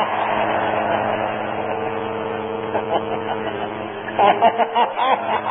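A large gathering laughing together in a group laughter exercise, the noise of the crowd slowly dying down. About four seconds in, a voice breaks into short, loud bursts of laughter.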